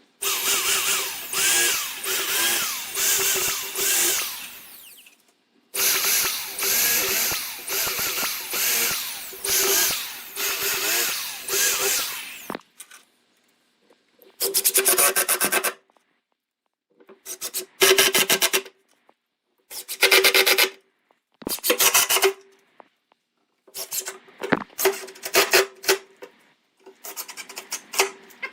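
Wood being worked with a scraping tool such as a saw or rasp: repeated rubbing strokes, about two a second, in two long runs, then several short bursts of a second or two each.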